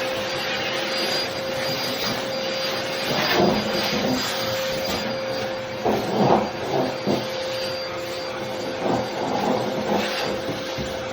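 Hoover bagless backpack vacuum running, a steady motor whine over a constant rushing hiss, with scattered knocks and scrapes from the tool, several of them clustered about six to seven seconds in.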